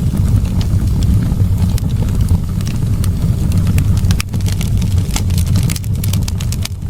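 Wood fire in a fireplace, crackling and popping over a low, steady rumble of flame. The sharp crackles are scattered irregularly and come more often in the second half.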